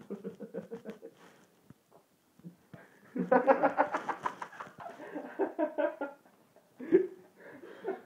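People laughing hard in rapid, pulsing fits, loudest in a long stretch from about three to six seconds in, with a shorter burst near the end.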